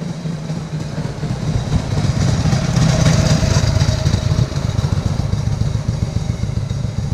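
Vintage motorcycle engine running as the bike approaches and passes close by, loudest about three seconds in, then fading as it rides away.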